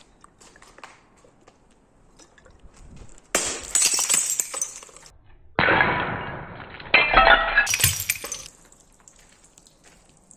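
Glass bottles breaking and crunching as they are crushed. After a few seconds of faint crackling, there are several loud stretches of about one to two seconds each, which start and stop abruptly.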